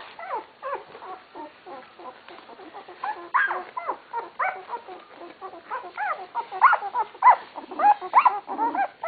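Two-week-old puppies whimpering and squeaking in short, arching, high-pitched cries, growing louder and more frequent from about three seconds in.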